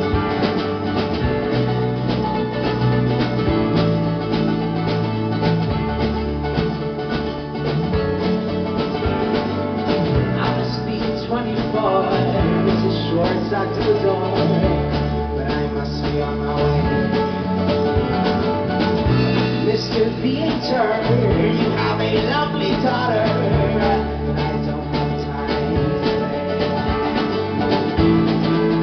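Live folk-rock band playing a song, with acoustic guitar, mandolin, electric bass, keyboard and drums. A male voice sings through the middle stretch, from about ten seconds in until about twenty-four seconds in.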